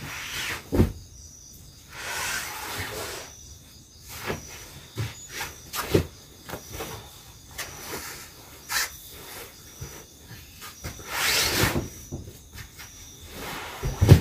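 A thick quilted blanket being shaken out, folded and patted down on a foam floor mat: fabric swishes, the loudest about eleven seconds in, with scattered soft knocks on the wooden plank floor.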